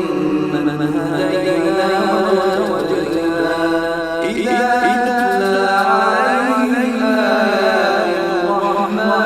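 A male reciter chanting the Quran in the melodic tajweed style, with long held notes that slide and waver in ornamented runs, sung without a break.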